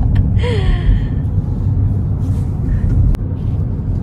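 Steady low rumble of road and engine noise heard inside a moving car's cabin. About half a second in there is a short breathy vocal sound with a falling pitch, and a single sharp click just after three seconds.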